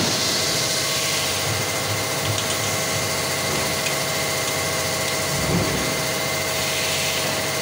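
A machine running steadily in the workshop: a constant hum with a few steady whining tones over it, and a few faint light clicks about two seconds in.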